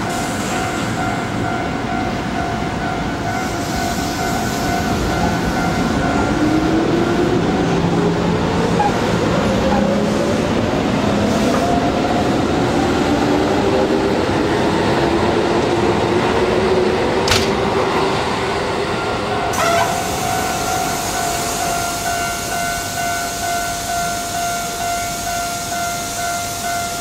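Keikyu 1000 series electric train pulling away from a platform, its traction motors whining and rising slowly in pitch as it accelerates. About two-thirds of the way in, a level crossing alarm takes over, ringing steadily with a pulsing beat.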